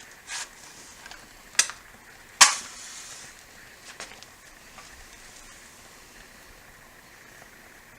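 A few sharp scrapes or strikes while a fireplace is being lit, the loudest about two and a half seconds in, followed by about a second of soft hiss. After that there is only faint background.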